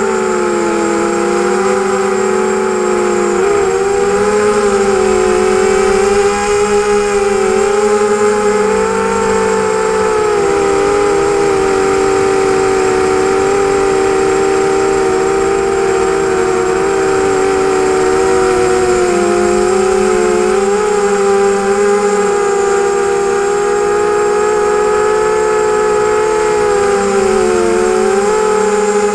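ZMR250 quadcopter's brushless motors and propellers whining as heard from the onboard camera, several tones wavering and dipping together as the throttle changes.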